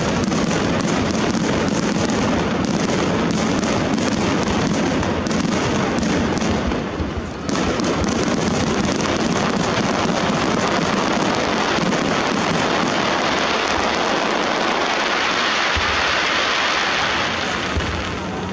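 Japanese starmine fireworks barrage: aerial shells launching and bursting in rapid succession, a dense, unbroken mix of bangs and crackling. There is a brief lull about seven seconds in, and a hissing crackle of glittering stars swells near the end.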